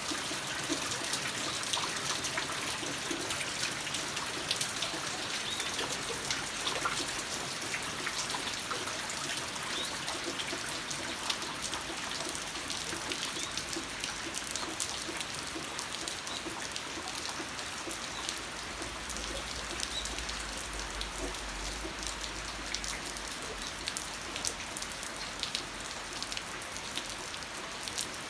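Steady rain, with many individual drops ticking sharply on nearby surfaces.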